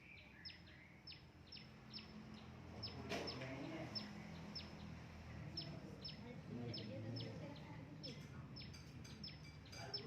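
A small bird chirping over and over: short, high notes that fall quickly in pitch, about two a second, with a short pause midway. A steady low hum runs underneath.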